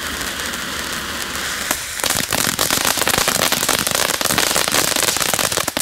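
Small Category 1 (F1) firework fountain spraying sparks with a steady hiss, then, about two seconds in, breaking into dense, rapid crackling.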